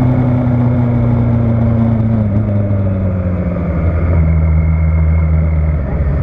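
Motorcycle engine running, heard from on board the bike. Its note holds steady, then falls slowly from about two seconds in as the bike slows toward a bend, with a brief dip in level near the end.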